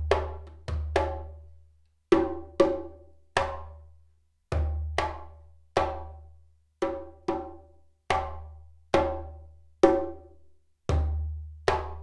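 A Dugura-wood djembe played with bare hands: single strokes about half a second to a second apart, each ringing briefly, several with a deep low boom beneath.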